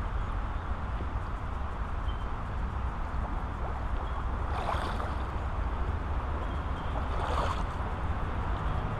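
Wind buffeting the microphone, a steady low rumble, with two brief sharper rushes about five and seven seconds in.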